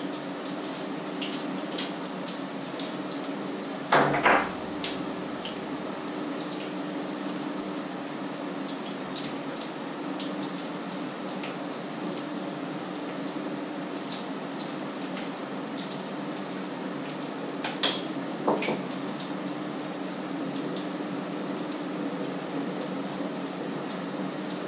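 Food frying in pans on an electric stove: steady sizzling with scattered spits and crackles, over a low steady hum. A pot or pan clanks loudly about four seconds in, and again more lightly around eighteen seconds.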